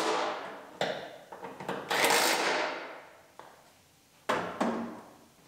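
Cordless impact wrench running in several short bursts, driving in and tightening the deck-lid hinge bolts. The longest burst comes about two seconds in.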